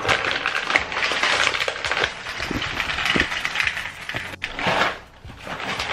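Dry food pieces pouring and rattling into a bowl, a dense run of small clicks that eases off near the end.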